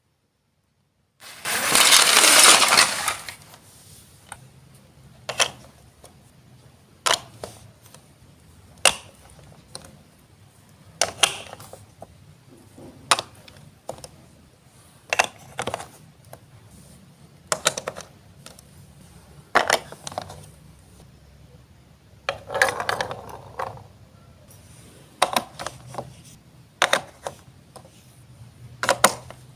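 Hard plastic Lego Duplo bricks clacking, one sharp click roughly every two seconds as bricks are set down and pressed together. A loud rattling clatter about a second in, and a shorter one a little after the middle.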